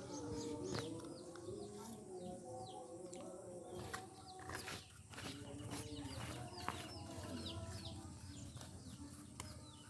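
Chickens clucking, faint, among many short falling chirps of birds, with a few sharp clicks along the way.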